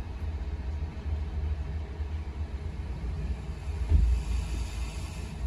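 Steady low rumble inside a car, with a single thump about four seconds in, followed by a faint hiss.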